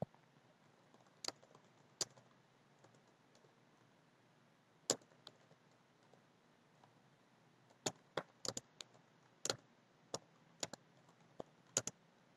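Computer keyboard being typed on, faint: a few scattered keystroke clicks, then a quicker, irregular run of keystrokes over the last few seconds.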